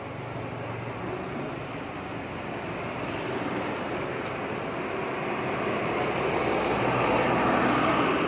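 Steady rushing noise of road traffic, growing gradually louder.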